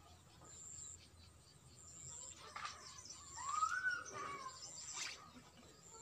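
Outdoor rural ambience: a thin, high call repeats at an even pace about every second and a half, like an insect or bird. About halfway through, one louder call rises and falls in pitch, and there are a couple of faint knocks.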